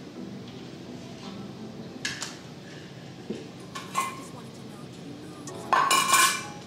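Stainless steel dog bowls clinking against a raised metal feeder stand as they are lifted and set back in: a few light knocks, then a louder ringing clatter near the end.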